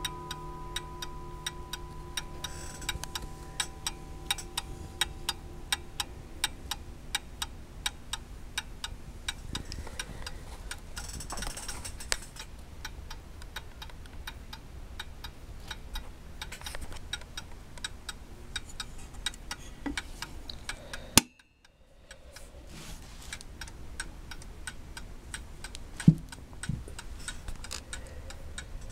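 Ansonia antique porcelain mantel clock ticking steadily, with the last of its chime ringing and fading out over the first few seconds. About two-thirds through comes a sharp click and a moment of silence, and near the end a single loud knock.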